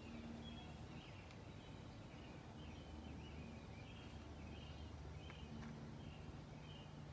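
Faint outdoor background: a bird chirping over and over, short high chirps about twice a second, over a low steady hum, with a couple of faint light ticks.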